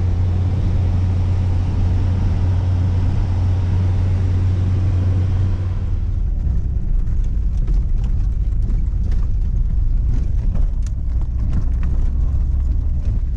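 Car cabin noise while driving on a wet road: a steady low engine and drivetrain drone under a broad tyre and road hiss. About six seconds in the hiss falls away and the drone drops lower, and scattered light clicks and knocks come through.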